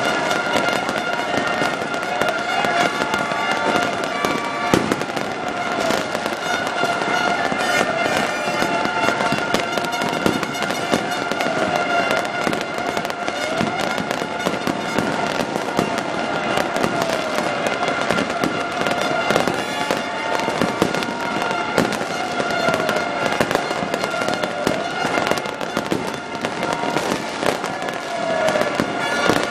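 Fireworks bursting and crackling without pause, with many overlapping bangs. Steady tones and recurring rising-and-falling pitch glides sound over the crackle.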